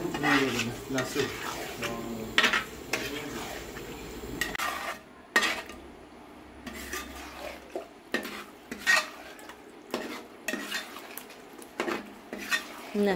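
A spoon stirring and scraping in a cooking pot of chicken roast gravy, clinking against the pot's sides at irregular intervals. The clinks come thick at first and then about once a second.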